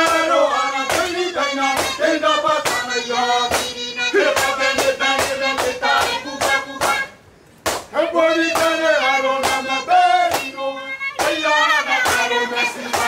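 Background music: voices singing over a sharp clapped beat, with a brief break about seven seconds in.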